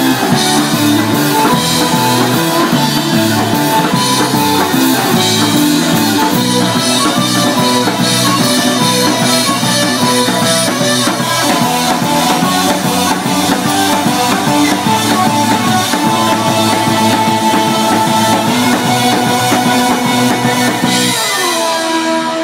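Live Celtic rock band playing an instrumental passage on drum kit, electric guitars and bass. Near the end the drums and bass drop out, leaving a ringing held chord.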